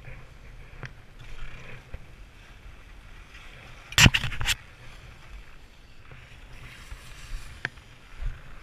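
Skis sliding and scraping over packed snow as the skier turns down a groomed run, with a short burst of sharp clattering about four seconds in.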